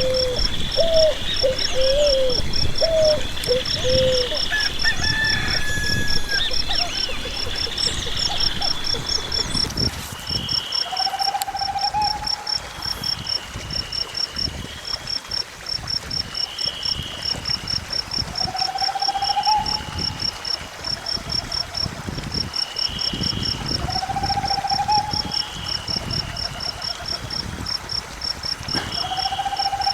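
Countryside ambience: crickets chirping in a steady, fast pulse with birds calling. In the first ten seconds a chicken gives a run of short calls; after that, a short rising call repeats every few seconds over the crickets.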